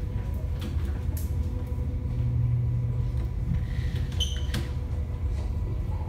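Wind buffeting the microphone aboard a boat in rough sea, heard as a low, fluttering rumble with water washing along the hull and a faint steady engine hum underneath. A short, high squeak comes about four seconds in.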